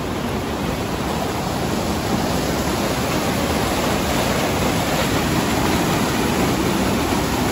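Fast, flood-high river water rushing and pouring over a low concrete weir in white water: a steady, even rush that grows a little louder about two seconds in.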